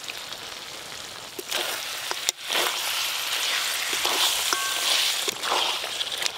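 Spiced chicken pieces sizzling in a hot metal karai, with the spatula scraping and clicking against the pan as it is stirred. The sizzle grows louder about a second and a half in.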